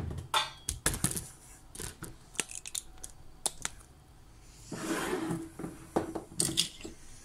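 Scattered sharp clicks and scrapes of handling: a red plastic screw lid on a large glass jar being worked, with a soft rustle about five seconds in.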